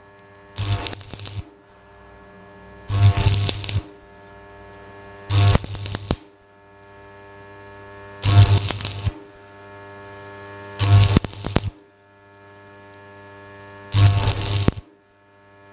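Old Club 140 stick welder tack-welding a moped exhaust pipe: six short crackling arc bursts, each under a second, about every two and a half seconds, with the welder's transformer humming steadily between them.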